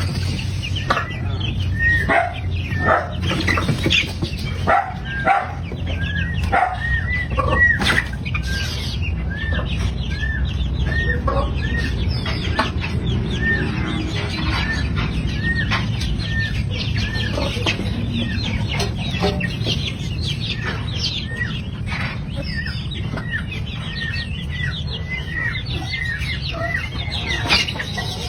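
Chickens clucking and calling, a long string of short, high, arching calls repeated every half second or so, with scattered clatter.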